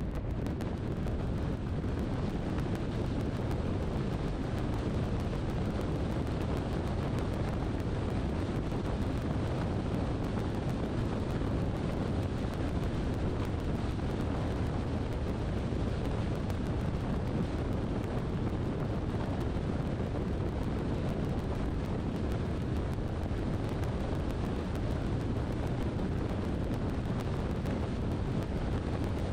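Steady low rumble of a car driving along: road and wind noise, even throughout.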